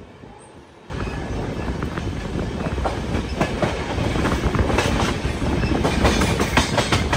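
An LHB passenger coach's wheels rolling over the rails, with a steady rumble and irregular sharp clacks as they cross rail joints and junction points, the clacks coming thicker toward the end. It starts suddenly about a second in, after a quieter moment, and is heard at the open door of the moving coach.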